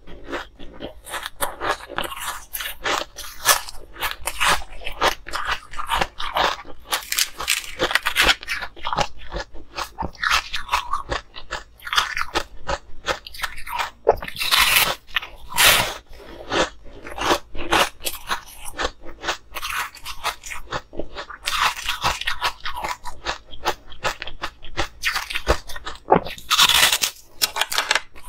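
Crunching and chewing of frozen pink-and-green coloured ice, close to clip-on microphones: a dense run of crisp crunches, with louder bites about halfway through and again near the end.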